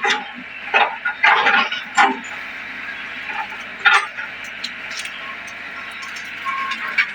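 Excavator working a ditch: a steady running noise with several sharp knocks and clanks, the loudest coming about 1, 2 and 4 seconds in.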